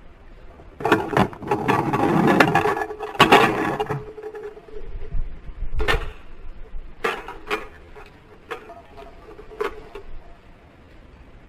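Toy tow truck rolling down a plastic jump ramp, rumbling for about three seconds, followed by several separate sharp clacks of the toy landing and knocking against hard plastic.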